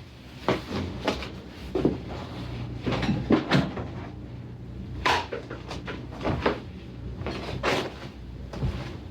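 Case pieces of a Homelite tool being picked up and handled: a dozen or so irregular knocks and clacks, the loudest about three seconds in and again about five seconds in, over a faint steady low hum.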